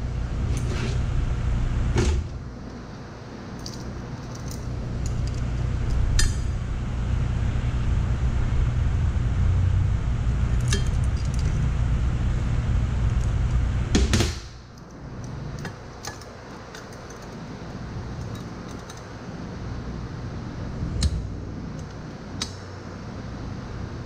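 Scattered metallic clinks and knocks of locking pliers against a small steel mower wheel rim clamped in a bench vise, over a steady low hum that drops away a little past halfway.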